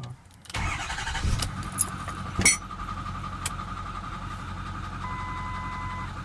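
A Ford 6.4 L Power Stroke turbo-diesel V8 cranks and fires about half a second in, with a few sharp clicks as it catches, then settles into a steady idle with a rapid, even ticking. The owner suspects a failed rocker arm in the top end. A short electronic beep sounds for about a second near the end.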